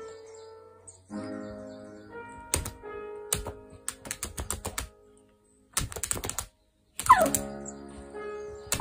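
Game tones and plucked-sounding notes from a tablet, broken by sharp taps and clicks as a dog's paw and claws strike the screen. A quick falling-pitch sound comes about seven seconds in, and the sound cuts out completely twice just before it.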